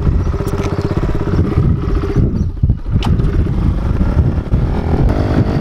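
Kawasaki KLX110L pit bike's small single-cylinder four-stroke engine being ridden, revving up and down under the throttle. The revs dip briefly about two and a half seconds in, then climb again.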